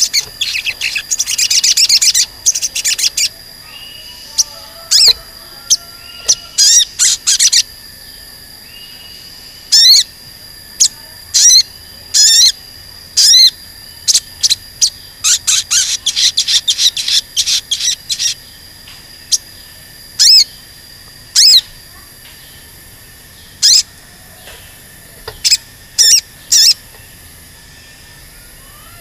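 Olive-backed sunbird (sogon) singing its high, sharp 'cuit cuit' chirps: a dense rapid run in the first few seconds, then scattered single and clustered chirps with short pauses between them.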